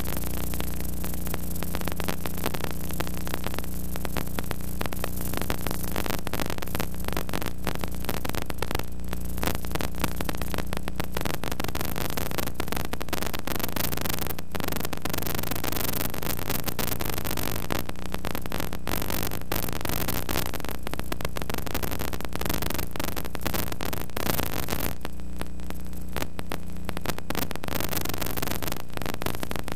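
Steady electrical hum with hiss and crackling static, with no game sound or commentary in it.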